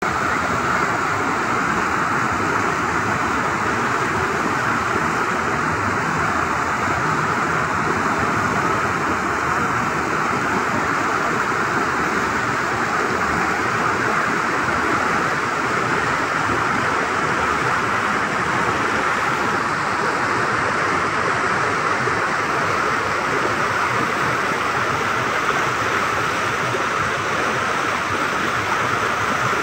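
River rapids rushing over rocks: white water flowing in a steady, unbroken rush.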